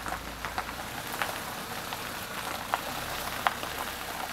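A Chevrolet car rolling slowly along a dirt track, its tyres crunching over gravel in irregular small crackles over a low engine hum.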